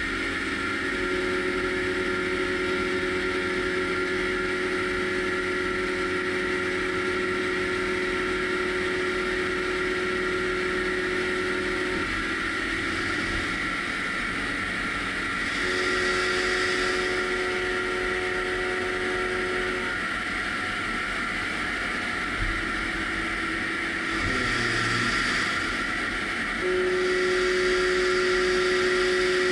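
A solid carbide end mill in the driven tool unit of a CLX 350 CNC lathe, milling a tool-steel workpiece under coolant. A steady machine whir carries a humming tone that comes in three stretches and drops out between them. It is loudest near the end.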